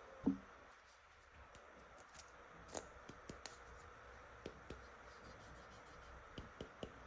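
Small plastic toy pieces being handled, giving one louder knock just after the start, then a scatter of light clicks and taps.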